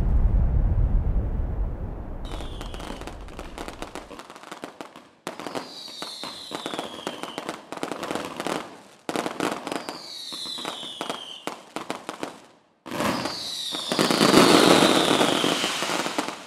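Fireworks: dense crackling, each stretch carrying a whistle that falls in pitch. The stretches are cut apart by sudden short gaps, and the last one is the loudest. A low rumble fades out over the first few seconds.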